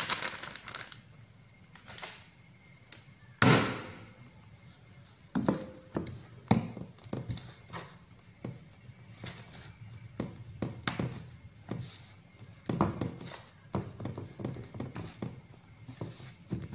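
Irregular soft thumps and rustling as hands press and pat a raw chicken piece into dry seasoned flour in a stainless steel dish. The loudest thump comes about three and a half seconds in.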